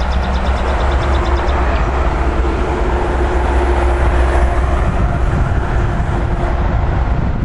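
Electric regional train approaching along the line: a steady low rumble with a faint even hum above it, growing as the train comes round the curve.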